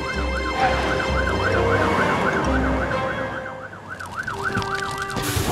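Cartoon fire-truck siren wailing rapidly up and down, about two and a half rises a second, over background music. It cuts off near the end.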